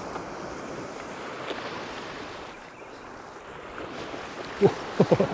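Sea waves washing over shoreline rocks, with wind on the microphone, a steady rush. A few brief sharp sounds come near the end.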